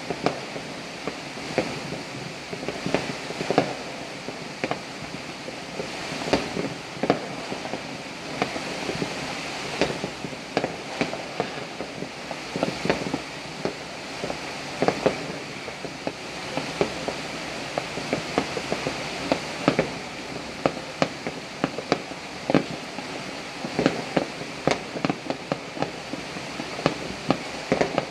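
Fireworks and firecrackers going off across a city, with irregular sharp pops and bangs about every second, some in quick clusters, over a steady hiss of rain.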